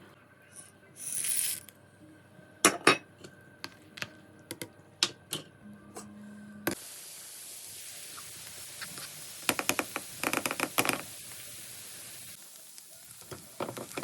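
Kitchen cooking sounds: a short hiss and scattered clinks and taps of utensils and pans, then, from about halfway, a steady sizzle of food frying in a pan. A quick run of clattering near the end of the sizzle is the pan's contents being stirred.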